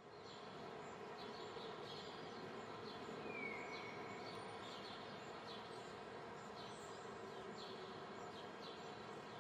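Faint outdoor nature ambience: a steady hiss under a small bird chirping repeatedly in short falling notes, with one longer falling whistle about three seconds in.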